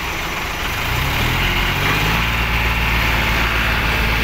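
John Deere tractor's diesel engine revving up about a second in, then holding at the higher speed as it takes the strain of towing a rotavator on a rope.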